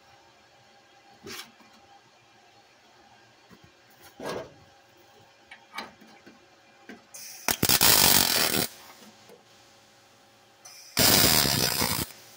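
Two short bursts of MIG (wire-feed) welding, each about a second long, tack-welding a sheet-steel floor patch panel; a few light hammer taps on the panel come before them.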